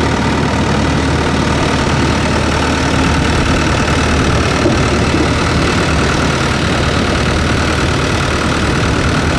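Thai longtail boat engine running steadily while the boat is underway, heard from aboard.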